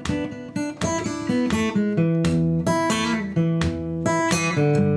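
Music on acoustic guitar, notes plucked and strummed in a steady rhythm.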